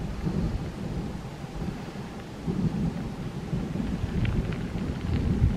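Wind buffeting the microphone: an uneven low rumble that swells and drops in gusts.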